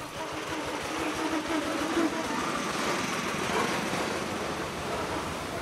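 Street traffic: the engines of small motor vehicles running as they move along the road.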